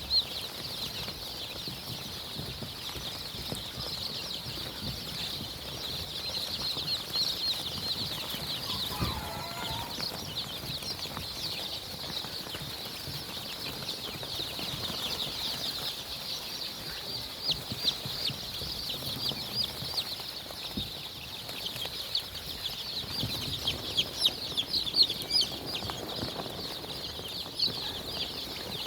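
A large flock of chickens, chicks by the sound of it, peeping in a dense, high-pitched chorus without pause, with a brief lower call about nine seconds in.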